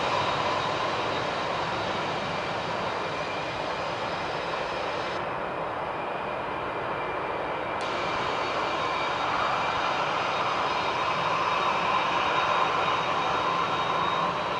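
Boeing 747's four jet engines running on the runway: a steady roar with a high fan whine. The hiss thins for a couple of seconds about five seconds in and comes back with a click.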